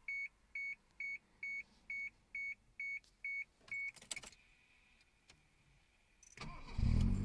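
A car's warning beeper sounds nine times, about two beeps a second, followed by a few clicks. Near the end the engine is cranked and starts, settling into a steady idle.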